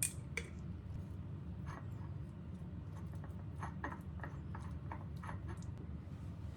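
Scattered light clicks and taps, a sharper one right at the start, over a steady low hum.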